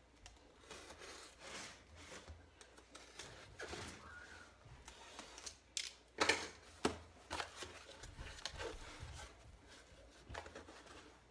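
A cardboard shipping box being opened and its flaps and corrugated cardboard packing handled: scattered scrapes, rustles and taps, the sharpest a few knocks about six to seven seconds in.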